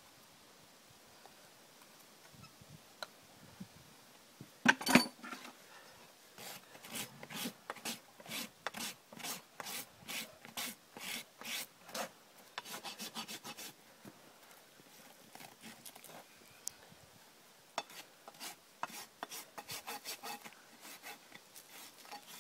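Farrier's hoof rasp filing a horse's hoof, rhythmic scraping strokes about two to three a second, in runs with a short pause between. About five seconds in, a few sharp knocks, the loudest sounds here.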